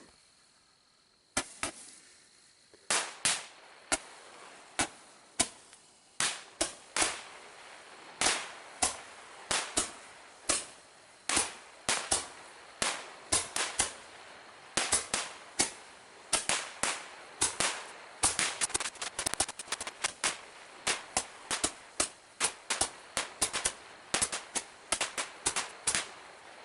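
Roman candle fireworks firing: a long series of sharp pops, one or two a second, over a faint hiss. The pops start about a second and a half in and crowd into a rapid volley about two-thirds of the way through.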